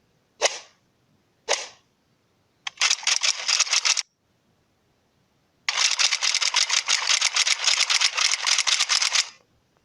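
A downloaded sound-effect clip playing back from the phone: two short whooshes, then two runs of rapid clicking, about ten clicks a second, the second run lasting several seconds.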